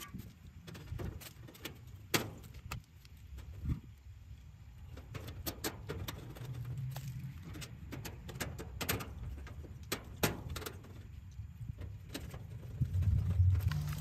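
Sheet-metal access cover being refitted on an air-conditioner condenser unit: scattered clicks, knocks and small metallic rattles as the panel is set in place and its screws are driven with a screwdriver, over a steady low hum.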